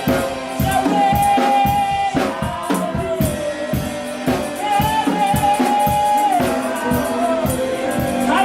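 Gospel worship music: singing with long held notes over a steady drum beat of about two strikes a second.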